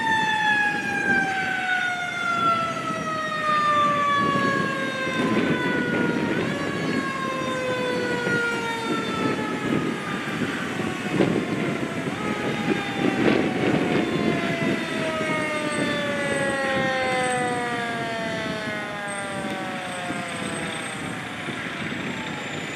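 Fire engine siren winding down: its pitch falls slowly and steadily, is pushed back up briefly about six and twelve seconds in, and fades out shortly before the end. Under it are truck engine and traffic noise.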